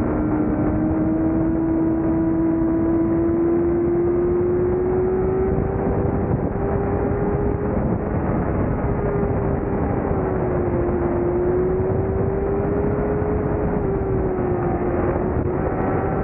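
Yamaha R6's 600 cc inline-four engine running at high revs under load, heard from an onboard camera with a heavy wind rush. Its pitch climbs slowly, drops a little about ten seconds in, climbs again, and dips briefly near the end. The bike is on a final drive geared too short, so it runs high in the rev range.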